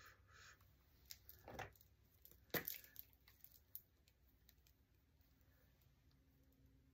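Near silence with a few faint clicks and taps from makeup sticks being handled, all in the first four seconds; the loudest comes about two and a half seconds in.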